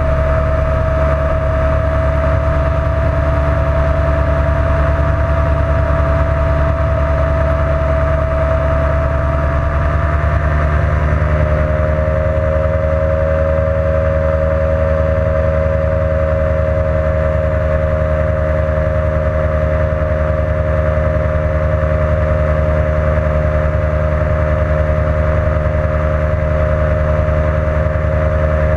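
Ultralight aircraft's engine and propeller running steadily in flight, heard from the open seat. About eleven seconds in the pitch steps down slightly and then holds.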